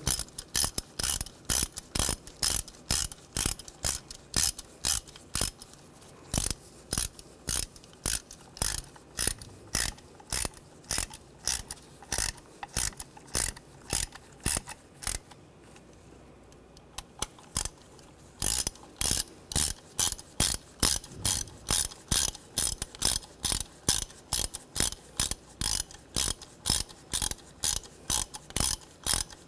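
Hand ratchet clicking as it drives the T30 Torx bolts down to tighten an ignition coil pack onto the valve cover, about three clicks a second. The clicking stops for a few seconds about halfway through.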